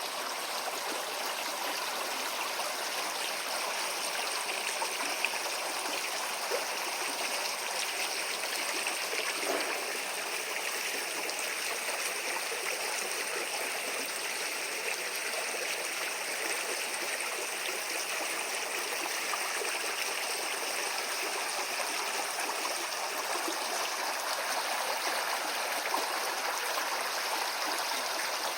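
A shallow stream flowing over stones, a steady burbling rush of water.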